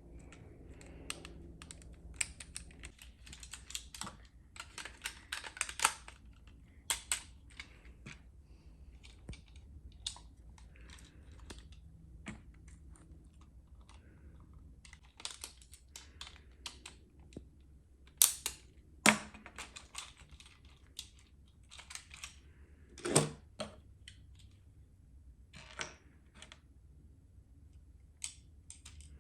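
Irregular small clicks and taps of plastic toy parts, screws and a screwdriver being handled as a take-apart toy truck is put back together, with a few sharper knocks a little past halfway through.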